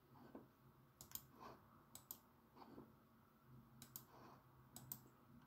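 Faint computer mouse clicks, a few single clicks and quick double-clicks, over near-silent room tone.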